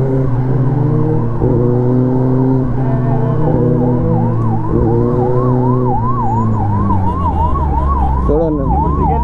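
Kawasaki ZX-10R sportbike's inline-four engine running as the bike slows in traffic, its note stepping and then dropping. A siren warbles fast over it, rising and falling about three times a second, starting a few seconds in.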